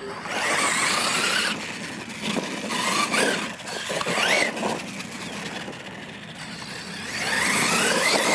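Losi LMT radio-controlled monster truck on a 3S LiPo battery driving over dirt, its brushless electric motor and drivetrain whining up and down in pitch as the throttle is worked. It is loudest in the first moments and again near the end, with a duller stretch in between.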